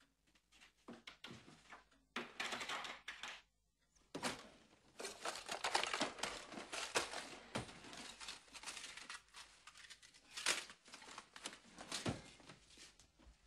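Irregular crinkling and rustling with many small clicks, pausing briefly a few seconds in and then going on steadily until near the end.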